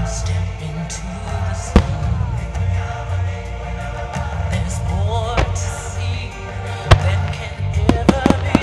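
Music with a steady bass beat and singing, accompanying a fireworks display. Single firework bangs come about two seconds in and again around seven seconds, then a quick string of bangs near the end as a new volley of shells bursts.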